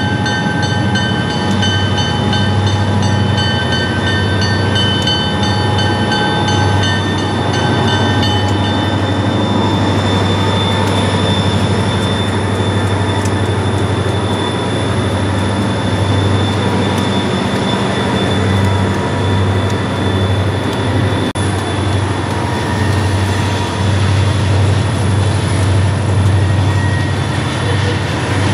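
Freight train led by a GP40-2 diesel locomotive moving slowly past: a steady, loud, low diesel rumble. For the first eight seconds or so a high metallic squeal of several pitches at once comes from the wheels, then fades out.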